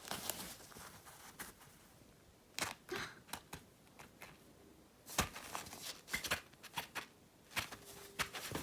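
A kitten playing in a cat tunnel: irregular rustling and scratching, with sharper clicks at about two and a half seconds and around five to seven seconds in.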